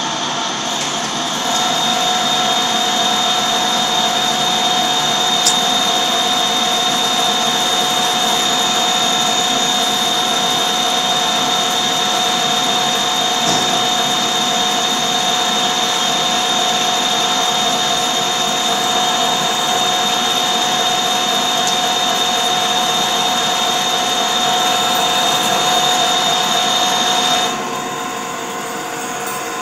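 Metal lathe turning a large metal workpiece with the cutting tool engaged: a steady machining noise carrying a high whining tone and a lower steady tone. The sound steps up about a second and a half in, and near the end the tones stop and the level drops as the cut eases off.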